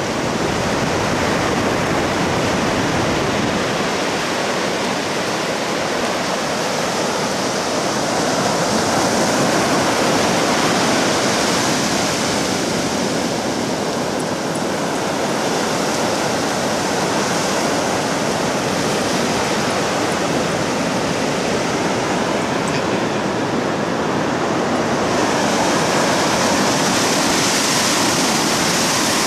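Ocean surf breaking and washing up a flat sandy beach: a continuous rush of water that swells and eases slowly, loudest about a third of the way in and again near the end.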